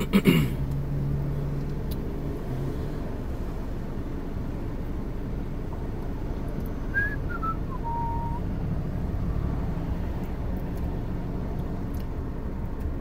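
Steady low rumble of a car's cabin with the engine running. About seven seconds in, a short whistle slides down in pitch and holds briefly.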